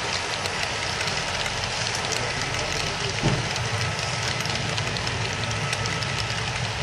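Model freight train rolling past on a layout: a steady rumble of the cars' wheels on the track, with light clicking throughout and a single knock about three seconds in.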